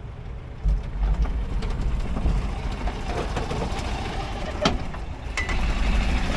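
Lifted golf cart driving up onto a wooden-decked trailer. Its motor runs under load, with a low rumble that comes in strongly about a second in. There is a sharp knock about halfway through.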